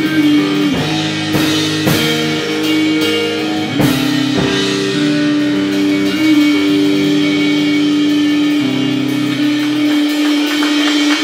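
Live melodic hardcore band playing: electric guitar holds ringing chords over drum-kit hits. The low end drops out about two-thirds of the way through, leaving the guitar ringing on its own.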